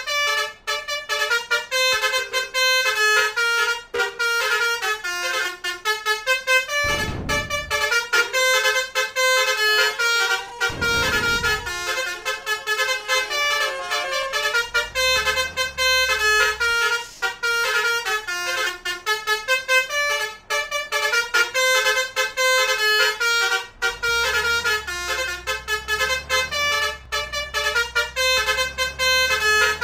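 Basuri multi-tone 'telolet' horns playing a tune, the notes stepping up and down several times a second without a break. A brief low rumble comes about 7 seconds in and again about 11 seconds in, and a low drone joins in the last few seconds.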